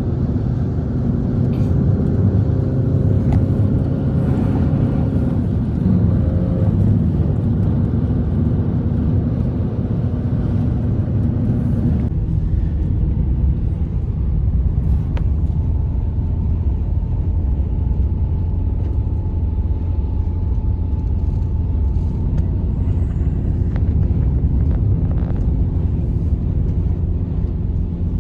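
A loud, steady low rumble with a few faint held tones over it, changing slightly in character about twelve seconds in.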